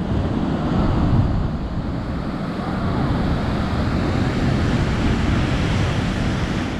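Ocean surf surging and breaking in a rocky coastal chasm, mixed with wind buffeting the microphone in a loud, steady rumble that swells a little now and then.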